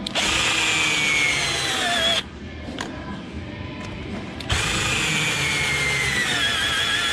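Cordless drill driving the mounting bolts of a roller skate plate, run twice for about two seconds each. Each run has a whine that falls in pitch as the drill slows while the bolt tightens down.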